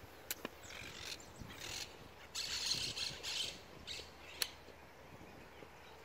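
Parrots squawking in several bursts through the first four seconds, loudest about two to three seconds in, with a few sharp clicks, the loudest about four seconds in.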